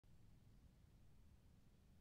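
Near silence: only a faint, steady low rumble and hiss of background noise.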